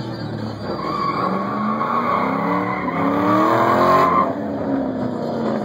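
A car's tyres squeal in a spin while its engine revs climb. The squeal and the revs cut off suddenly about four seconds in.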